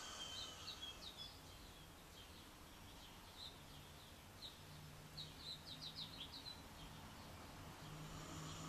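Birds chirping faintly in the background: short high chirps scattered through, with a quick run of chirps about five to six and a half seconds in, over a low steady hum.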